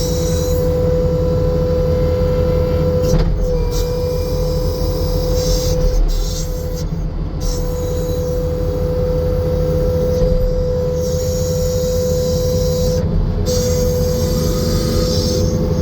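New Holland C245 track skid steer's diesel engine running steadily, with a constant high whine riding over the low engine rumble.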